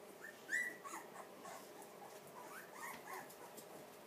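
Newborn blue pit bull puppies squealing: one loud rising squeal about half a second in, then a string of fainter short squeaks.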